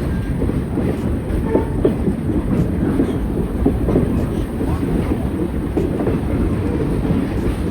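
Passenger train rolling along the track: a steady rumble with continual rattling and clatter from the railcar and its wheels.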